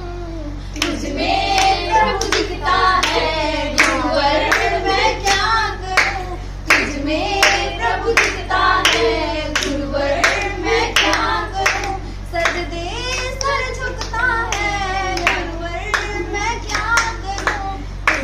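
A small group of schoolgirls singing a song together unaccompanied, with hand claps keeping a steady beat.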